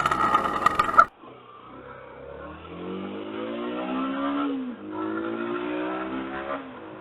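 Yamaha YBR125's small single-cylinder four-stroke engine pulling away and accelerating through the gears: its pitch climbs, drops at a gear change about four and a half seconds in, then climbs again. A louder, harsher engine noise fills the first second and cuts off suddenly.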